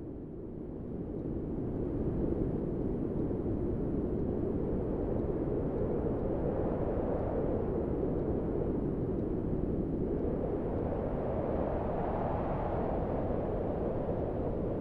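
Steady low rumbling noise, like wind or distant ambience, that swells over the first two seconds and then holds with slow rises and falls.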